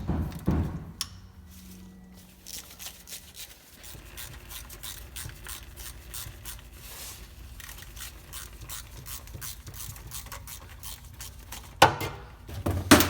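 Ratchet turning a 1/4-inch Allen socket on differential cover bolts, a run of quick metal clicks as the bolts are backed out. Louder metallic clanks at the start and twice near the end.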